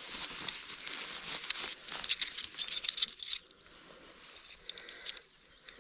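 Fabric stuff sack rustling as a bundle of metal Amok tent pegs is pulled out, the pegs clinking and rattling against each other. The clinking is densest about halfway through, with a few light clicks near the end.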